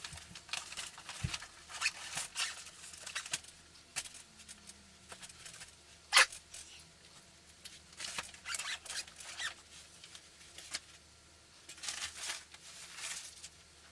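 Faint rustling with scattered sharp clicks, a dozen or so short bursts spread unevenly.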